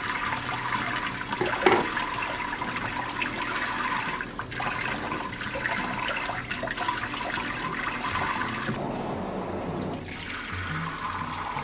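Kitchen tap running onto raw chicken wings in a stainless steel sink, with one sharp snip of kitchen scissors about two seconds in. About nine seconds in the sound changes to the tap pouring into a stainless steel pan, filling it over raw chicken pieces.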